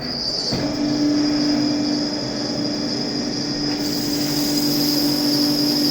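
Yangtuo VMC950 vertical machining centre running a U-drill operation in carbon steel. It gives a steady high whine and a steadier low hum: the whine comes in at the start and the hum joins about half a second in.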